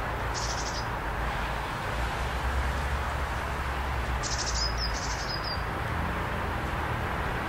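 A small bird sings short, high, rapid trills, once near the start and twice in quick succession about halfway through, some ending in a brief falling note, over a steady low background rumble.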